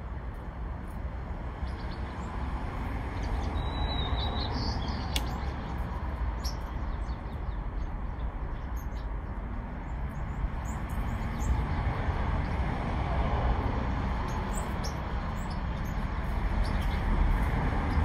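A few short bird chirps and scattered small ticks over a steady low rumbling background noise that grows a little louder near the end.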